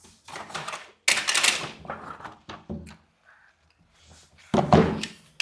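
Plastic toy JCB diggers being handled: irregular clattering and knocking with a sharp click, a short pause, then a louder burst of handling near the end.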